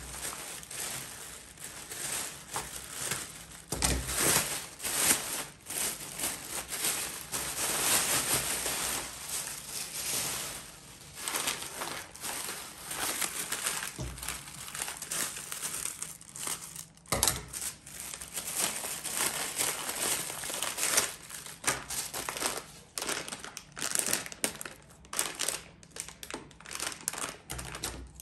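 Plastic poly mailer bags crinkling and rustling as a parcel is cut open with scissors and the plastic packets inside are handled and unwrapped, with a few sharp clicks and taps among the rustling.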